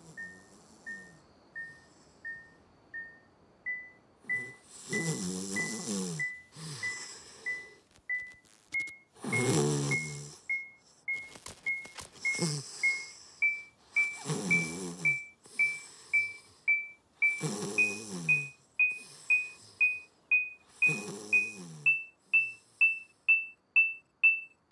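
An electronic detector beeping in short pings that step up in pitch and speed up from about one every 0.7 s to about two a second: a detector picking up an alien signal. Over it, a man snores every few seconds, and the snores are the loudest sound.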